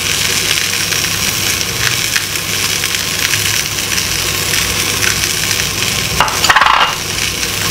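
Salmon fillets sizzling steadily as they fry in a frying pan. A short clatter stands out about six and a half seconds in.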